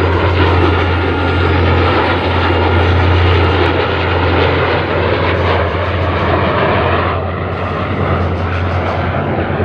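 Loud, steady aircraft noise from an F-35A jet and a P-51 Mustang flying together in formation, with a deep steady drone underneath.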